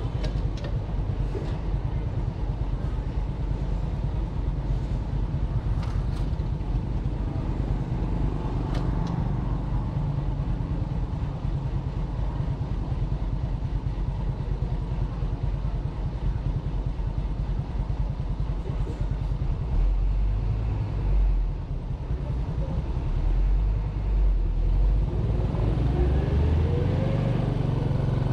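Small motorcycle being ridden along a road: the engine runs under a steady heavy low rumble. A rising engine note comes in near the end.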